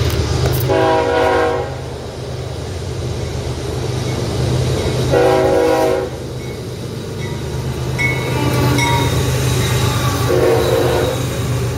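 Diesel locomotive air horn sounding three short blasts, several seconds apart, over the steady low rumble of the passing train.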